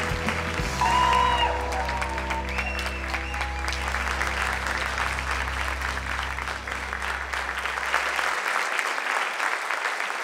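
Audience applauding in an auditorium, steady clapping throughout, over a held low music note that stops about eight seconds in.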